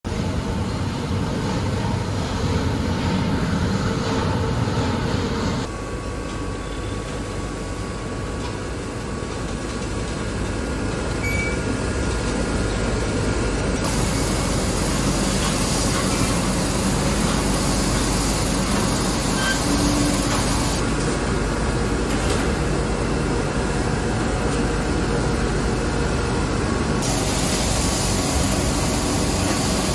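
Steady machine noise in an investment-casting shell-building shop, where wax-pattern clusters of bucket teeth are dipped in slurry and sand-coated. The noise changes abruptly at cuts about 6, 14, 21 and 27 seconds in.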